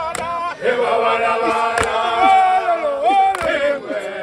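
A crowd singing and chanting together in Zulu, with many voices at once and a few sharp knocks cutting through.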